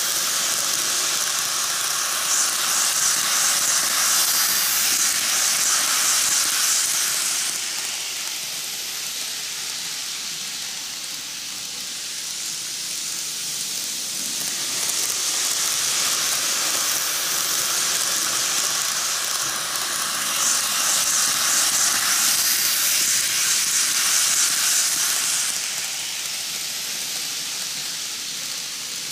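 Micro Ace N gauge Seibu 10000 series Red Arrow model trains running on TOMIX canted track. The wheels rolling on the rails and the small motors make a steady hissing rattle. It grows louder twice as the trains pass close by, and eases when they are on the far side of the curve.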